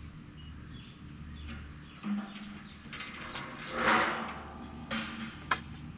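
Metal fire pit scraping and bumping against the stone surround as it is shifted into place: a short low rub about two seconds in, a loud rasping scrape near four seconds, and a sharp knock about a second and a half later.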